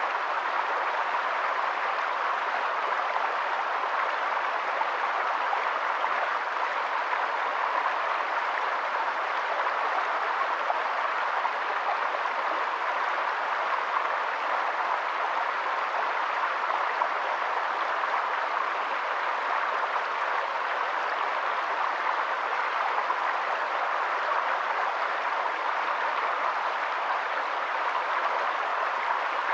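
Stream water flowing steadily: an even rushing with no other sound standing out.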